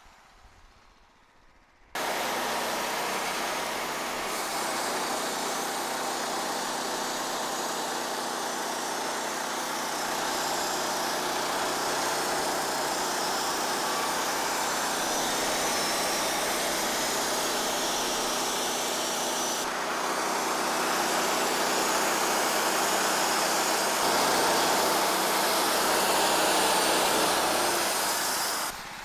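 Wood-Mizer LT15 band sawmill running under load, its engine driving the band blade through a locust log in one long, steady cut. The noise starts abruptly about two seconds in, grows a little louder in the last few seconds and drops away just before the end.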